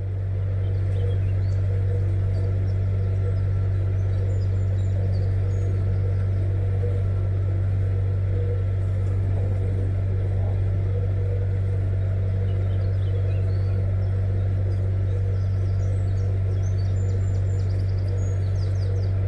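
Narrowboat's diesel engine running steadily at slow cruising speed, a constant low drone. Faint bird chirps come through now and then, a few about a quarter of the way in and again near the end.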